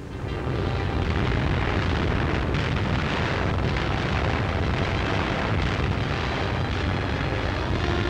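Newsreel battle sound effects: a steady, dense rumble of aircraft engines and explosions that swells up in the first second.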